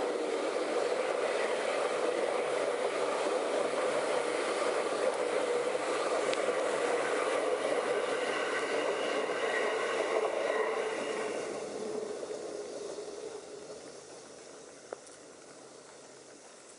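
Train of 205 series electric-multiple-unit cars, hauled by an EF64 electric locomotive, rolling slowly past on the rails with a steady wheel-and-rail rumble. The noise fades away over a few seconds near the end, leaving a faint steady hiss.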